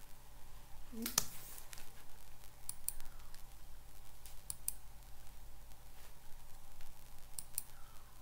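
Computer mouse clicking: a single click about a second in, then three quick double-clicks, over a steady low electrical hum.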